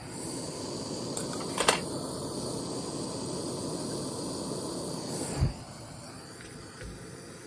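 Jeweller's gas torch flame hissing steadily, with a sharp click about two seconds in; the flame noise drops suddenly with a knock near the end, leaving a fainter hiss.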